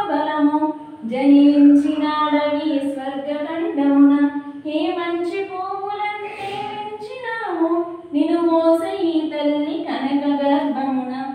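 A woman singing a Telugu poem to a melodic tune, unaccompanied, in sung phrases with short pauses for breath between them.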